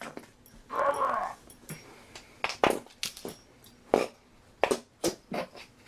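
A dog making a run of short, sharp sounds, about eight in three seconds, after a longer, rougher noise about a second in.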